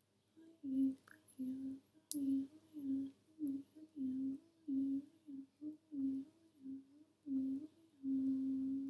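A woman's voice intoning wordless light language: a dozen or so short hummed syllables on nearly one pitch with brief gaps between them, ending on a longer held note.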